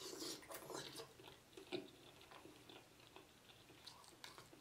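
A person chewing a mouthful of sauce-dipped lobster meat close to the microphone: faint, soft, wet mouth sounds, busiest in the first second, then scattered small clicks and smacks.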